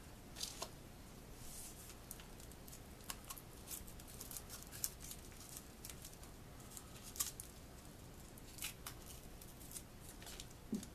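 Faint scattered clicks, scrapes and rustles of hands opening a firework aerial shell to get at its lift powder charge, a sharp tick every second or two.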